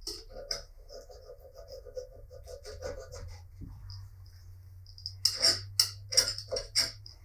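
Small workbench hand-work noises during a vise restoration: light clicks and a faint steady tone for the first few seconds, then a quick run of short scrapes and clicks in the last two seconds.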